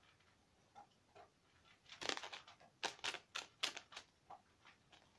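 A series of short, sharp clicks and taps at irregular intervals, starting about two seconds in, after a quiet start.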